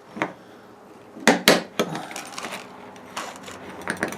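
Two heavy-duty screwdrivers clinking and scraping against a slotted piece of copper pipe as it is pried open. A few sharp metallic clinks come close together about a second and a half in, with lighter taps and scrapes after.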